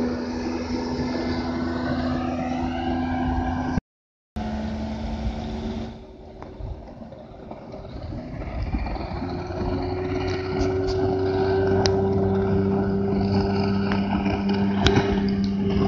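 A small motorboat's engine running steadily at speed. The sound cuts out to silence for a moment about four seconds in, drops quieter a couple of seconds later, then grows louder again through the second half.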